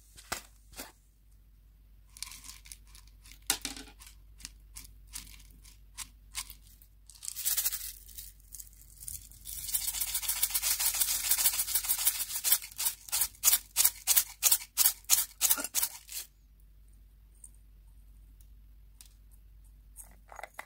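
Sprinkles and glitter rattling in plastic shaker bottles as they are shaken out over slime in a glass. There are scattered taps at first, then a hissing pour and quick rhythmic shakes, about three to four a second, that stop about sixteen seconds in.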